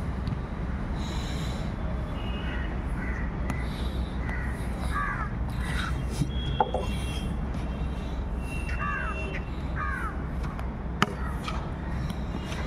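Crows cawing repeatedly over a steady low rumble, with a sharp knock once midway and again near the end.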